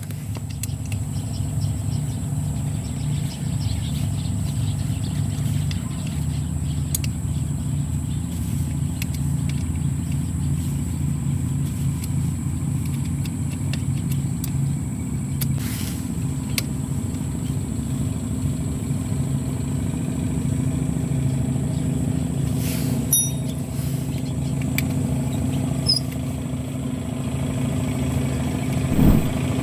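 Motorcycle engine idling steadily through a Sun Racing V2 adjustable aftermarket exhaust, with a couple of light clicks about halfway through.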